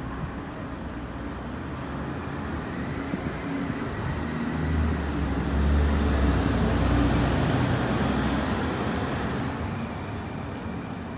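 Street ambience with the low rumble of a passing vehicle, which swells to its loudest in the middle and then fades.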